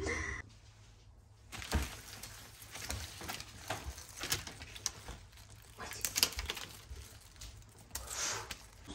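Brown kraft wrapping paper crinkling and rustling in irregular crackly bursts, with lily stems and leaves rustling as the bouquet is handled and unwrapped. It starts after about a second and a half of quiet.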